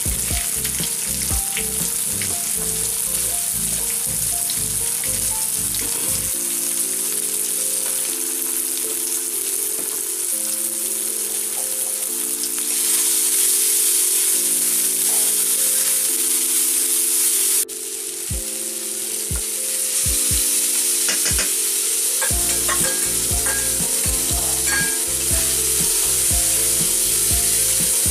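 Chopped onion, tomato and green chilli sizzling in hot mustard oil in a steel wok, stirred with a metal spatula that clicks and scrapes against the pan. The sizzle gets louder about halfway through, and soft background music plays underneath.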